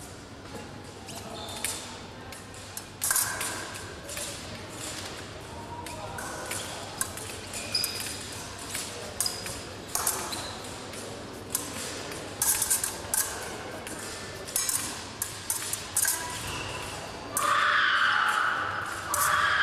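Épée blades clashing during a fencing bout: a run of sharp metallic clinks and clicks, some ringing briefly. Near the end comes a louder sustained sound about two seconds long.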